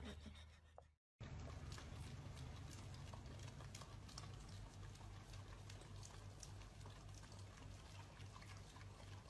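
Two dogs licking a soft-serve ice cream cone: faint, irregular wet licking and smacking clicks over a low hum.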